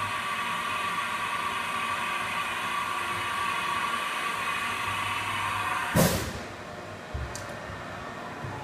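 Haas VF-4 CNC vertical machining center running inside its closed enclosure: a steady whine over a hiss. About six seconds in comes a sudden loud burst of noise, after which the whine stops and the machine is quieter.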